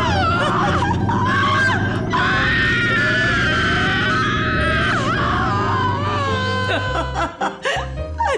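A woman's high, wavering scream over background music, with a short break about two seconds in; the scream stops about seven seconds in, leaving the music with short plucked notes.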